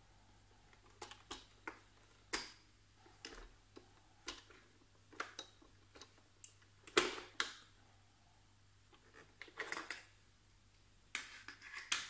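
Irregular sharp plastic clicks and short clatters of the Vorwerk Kobold VR200 robot vacuum's main roller brush and its plastic housing being handled and reseated on the upturned robot. The loudest rattle comes about seven seconds in, with another run of clicks near the end.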